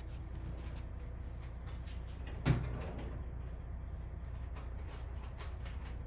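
Hand work on the engine: a few faint light clicks and one sharp knock about two and a half seconds in, as the fuel injector clamp and its 11 mm bolt are handled, over a steady low hum.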